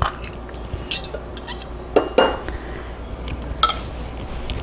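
A metal serving spoon and fork clinking and scraping against a ceramic casserole dish and plate as baked pasta is dished out: several sharp clinks, the loudest about two seconds in.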